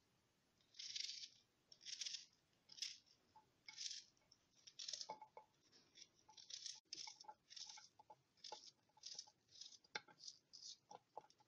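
Chopped onion being scraped into a terracotta pot of olive oil: a series of short, soft scraping rustles, about one a second, with a few light clicks.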